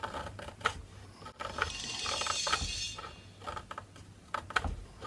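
Small Japanese carving knife paring waste wood off the edge of a wooden model-ship cant frame: a series of light, irregular clicks and short scrapes, with a longer shaving stretch about two seconds in.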